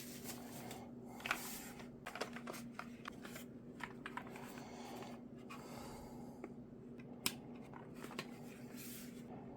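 Scattered light clicks and rustles of things being handled, likely the keyboard and its packaging during an unboxing, over a steady low electrical hum.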